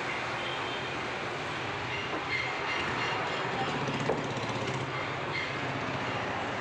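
Steady background noise, with a few faint clicks and a short knock about four seconds in.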